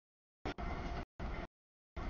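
CSX mixed freight train rolling past: a rumbling noise of locomotives and freight cars on the track, chopped into short bursts with dead silence between them.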